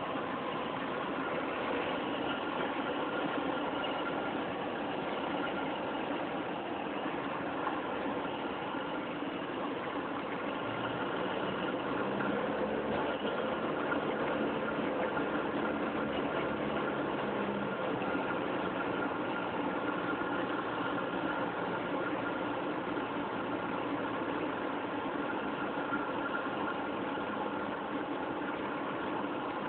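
Aircraft engine and cabin noise running steadily during a landing approach, with a low hum added for several seconds around the middle.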